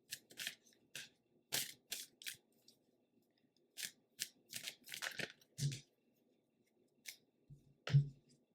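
Tarot cards being shuffled and handled: a quick, irregular series of short papery swishes as the cards slide against each other, with two soft thumps, the louder one near the end.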